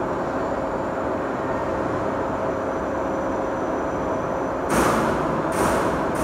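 Steady mechanical hum of a machine-shop floor, with a faint steady tone running through it. Near the end, two loud hissing bursts of under a second each cut in.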